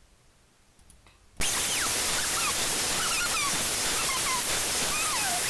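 A game file's raw bytes played as audio by Binary Waterfall: after near silence, a loud steady static hiss cuts in about a second and a half in. It carries faint squeaky chirps that glide up and down in pitch, like a bunch of mouse squeaking.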